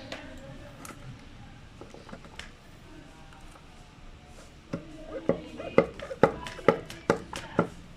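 A torque converter being worked by hand in a Hyundai Accent's automatic transmission, giving about seven sharp metallic knocks in the second half, a little under half a second apart. This knocking tells that the converter is fully seated on the transmission's oil pump.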